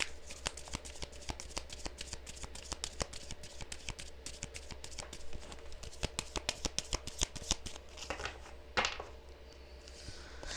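A tarot deck being shuffled by hand: a rapid run of soft card clicks and flicks for about eight seconds, then a brief swish as a card is slid out near the end. A low steady hum sits underneath.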